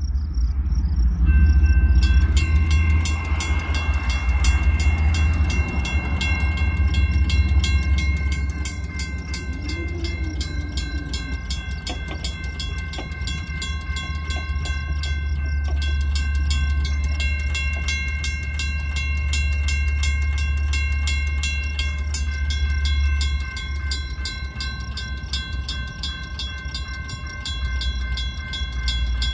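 Railroad crossing bells start ringing about two seconds in and keep up a fast, steady ring: a General Signals Type 2 electronic bell and a WCH mechanical bell sounding together as the crossing activates. A low rumble runs underneath and eases off near the end.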